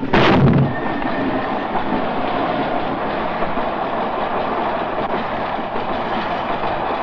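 A heavy ski boot drops onto the compartment floor with a thud, followed by the steady running noise of a moving train carriage.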